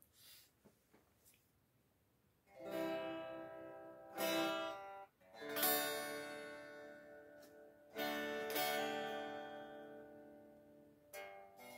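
A few faint handling knocks, then a guitar strumming slow chords, five in all, each left to ring and fade before the next.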